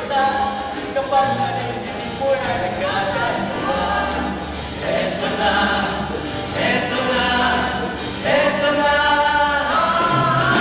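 A song with a boy's voice singing on a microphone, other voices joining in, over an accompaniment with a steady beat.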